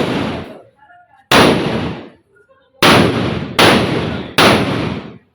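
Firecrackers going off: four loud, sharp bangs, each dying away over about half a second. The first comes about a second in and the other three follow close together in the second half.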